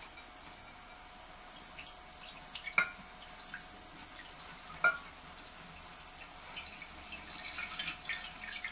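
Water poured from a stainless steel cup onto the top grate of a ceramic cat drinking fountain, trickling and dripping down into the bowl, with two short clinks about three and five seconds in.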